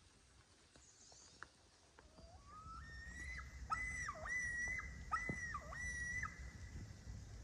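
A series of pitched animal calls over a low rumble: a tone climbing in steps, then about five held high calls, each dipping sharply in pitch and rising back.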